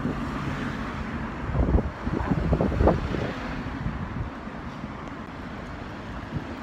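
Outdoor rumble of road traffic and wind on the microphone, swelling louder for about a second and a half around two seconds in.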